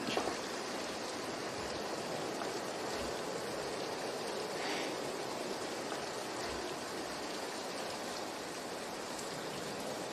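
Steady rain, a constant even hiss.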